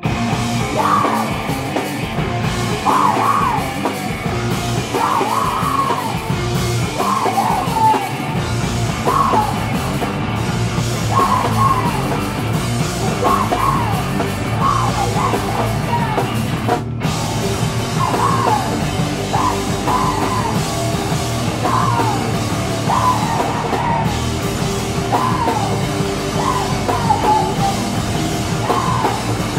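Live heavy punk-rock band playing at full volume: distorted electric guitars, bass and a drum kit, with a vocalist yelling short phrases every second or two.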